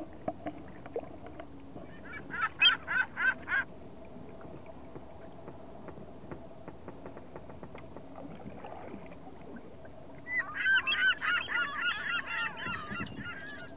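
Geese honking: a quick run of about seven honks a few seconds in, then a longer burst of many overlapping honks near the end, over a faint steady low hum.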